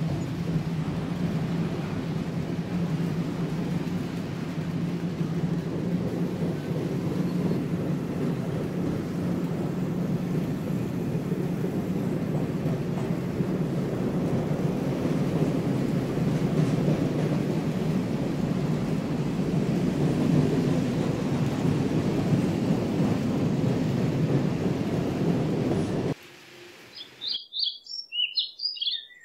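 Märklin H0 model trains rolling on metal M-track: a steady rumble with a steady motor hum that cuts off suddenly about 26 seconds in. Birds chirp near the end.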